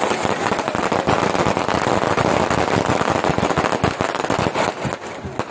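Fireworks going off in a rapid, dense volley of cracks and bangs, like machine-gun fire. The volley thins out in the last half second.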